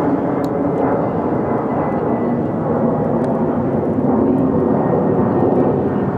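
An engine running steadily: a loud, even drone that holds level throughout.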